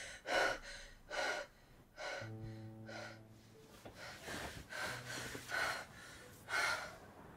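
A woman gasping and panting heavily, one short hard breath after another, as she jolts awake in bed. Low sustained music notes come in about two seconds in and again near five seconds.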